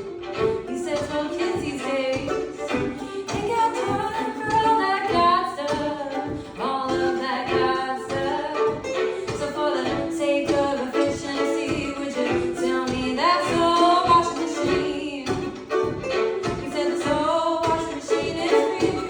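Live acoustic song: a singing voice over string-instrument accompaniment with a steady plucked rhythm.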